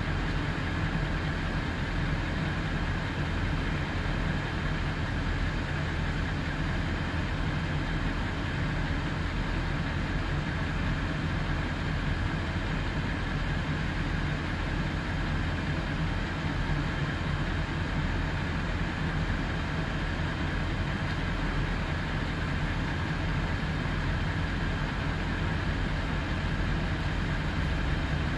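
Fire truck's engine running steadily at a constant speed, a low drone with a faint steady whine above it.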